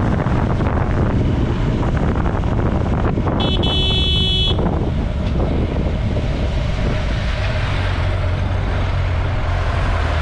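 Motorcycle engine running with road and wind noise on a helmet-mounted camera. A vehicle horn sounds once, a few seconds in, for about a second.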